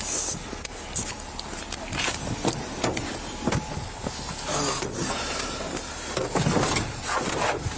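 Body-worn camera rubbing and knocking against the officer's uniform as he walks around a patrol car to its rear door, with many short knocks and clicks over a steady low rumble.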